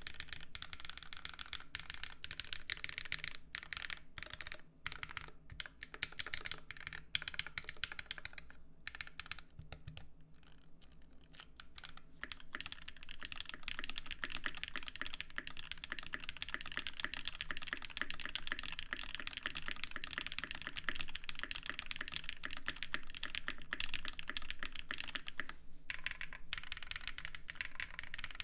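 Typing on a Viendi 8L custom mechanical keyboard: a dense stream of key clacks. The typing thins out briefly around ten seconds in, then runs on fast and continuous.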